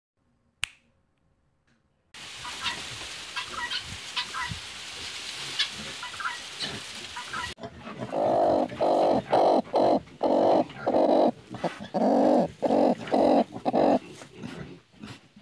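Hen sitting on her hay nest, giving a run of loud clucks about two a second as a hand reaches toward her. Before that comes a single sharp sound, then a stretch of short, high chirps.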